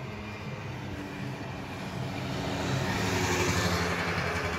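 A car passing along the street. Its engine and tyre noise swells to a peak about three seconds in, then fades.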